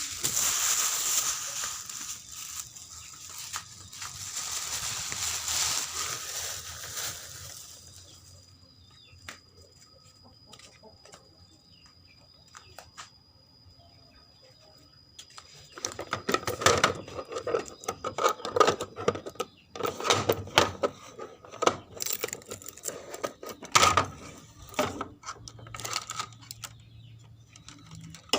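Rustling and scraping noise for the first several seconds, then a quieter spell of scattered clicks, then a long run of irregular clattering clicks and knocks, like parts being handled.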